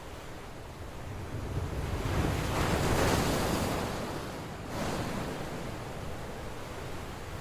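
Swimming-pool water splashing and rushing, with wind rumbling on the microphone. The noise swells in the middle and drops off sharply about four and a half seconds in.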